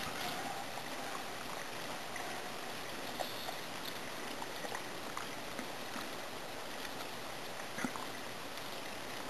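Steady outdoor hiss with scattered faint clicks and rustles as a bulldog noses and pulls at pea plants; the sharpest click comes near the end.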